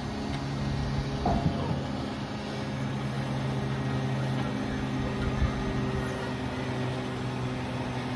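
An engine running steadily, giving a constant low drone with a steady hum.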